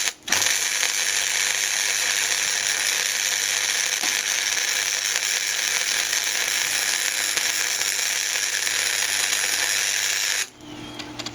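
Electric welding arc crackling steadily as a weld bead is laid on a steel motorcycle rack, with a short break just after the start; the arc cuts off suddenly near the end.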